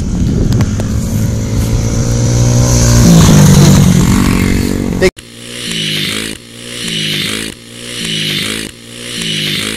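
Yamaha TTR-90 dirt bike's small four-stroke single running hard close by, its pitch climbing about three seconds in as it passes. It cuts off sharply about five seconds in, then comes back quieter, rising and falling about once a second as the throttle is worked.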